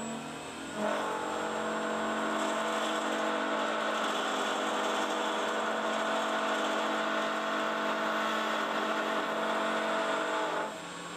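Wood lathe (WL-46A) running with a steady whine while a gouge cuts the spinning resin-cast burl egg blank, peeling off long shavings. The cutting noise starts about a second in and stops shortly before the end.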